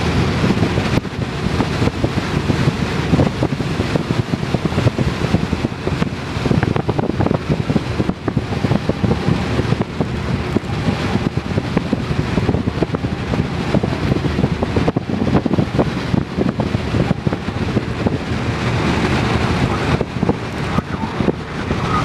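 Steady road and engine noise from inside a vehicle cruising at highway speed, with wind noise over it.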